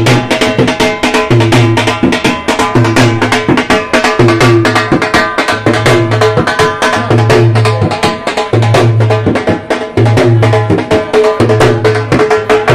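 Loud procession music: a stick-beaten drum struck in fast, dense strokes, over a low bass note that repeats about every second and a half, with higher melody notes above.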